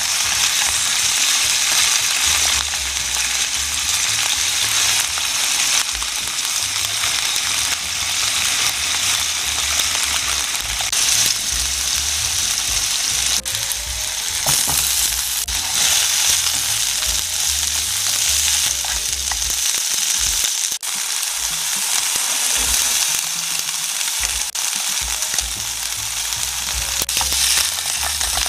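Diced chicken breast sizzling steadily in hot oil in a nonstick frying pan, with a spatula stirring and turning the pieces.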